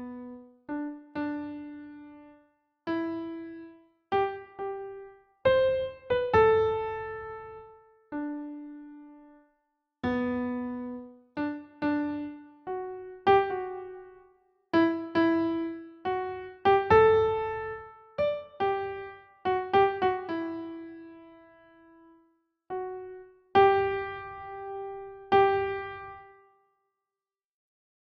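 Slow, gentle piano melody: single notes, sometimes two together, each struck and left to ring out and fade, with brief pauses between phrases.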